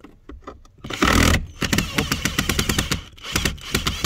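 Cordless drill-driver unscrewing a screw from a wooden speaker box. The motor runs in a short loud burst about a second in, then there is rapid clicking and chattering as the bit works at a screw whose head is stripped.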